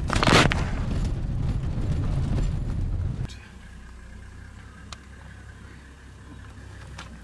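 Vehicle driving over rough ground: a heavy low rumble with a short burst of noise near the start. About three seconds in it cuts abruptly to a much quieter steady low hum, with one faint click.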